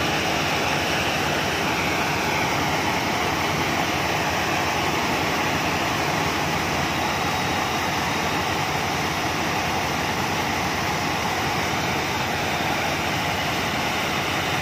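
Rice combine harvester running steadily, its engine and threshing and unloading machinery making a dense, even noise while it unloads grain. Near the start, a faint whine falls slowly in pitch.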